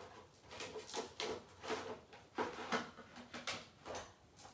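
Plastic embossing folders clacking and rustling as they are flicked through by hand, a string of light irregular knocks.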